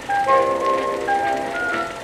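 Background music: a melody of held notes over chords, changing every half second or so.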